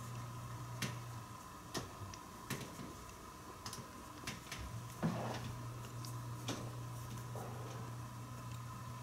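Scattered small clicks and light rustling as leather coat pieces held with pins and clips are handled and repositioned, over a steady low hum.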